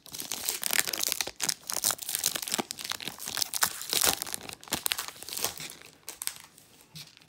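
Plastic foil wrapper of a Pokémon booster pack crinkled and pulled apart by hand, with dense rustling and sharp crackles that die down about six seconds in.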